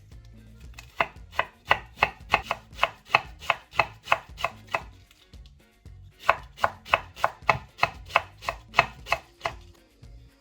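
Kitchen knife shredding stacked cabbage leaves thinly on a chopping board: quick, even knocks about four a second, in two runs with a short pause between.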